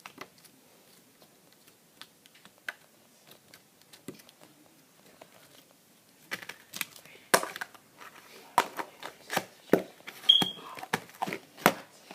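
Green slime being squeezed and stretched by hand: faint scattered clicks at first, then from about halfway a quick run of sharp clicks and pops from air caught in the slime.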